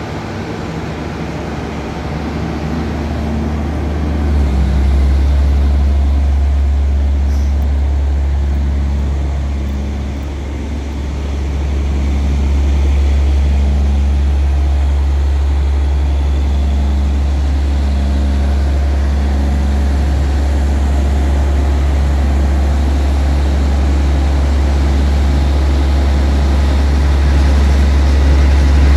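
Diesel engine of a Luna AT 80/41 all-terrain crane running at raised revs, a steady deep drone, as it powers the hydraulics that telescope the boom out. The drone swells about four seconds in, sags briefly near ten seconds, then picks up again.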